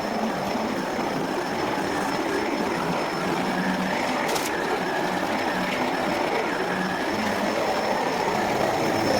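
Electrolux Precision vacuum cleaner running steadily: a continuous rushing hum with a thin high whine over it, and one brief click about four seconds in.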